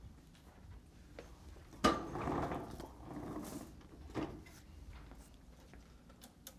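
Handling noise: a sharp knock about two seconds in, then rustling for a second or so, and a second knock about four seconds in. It comes from papers and equipment being moved at a lecture desk.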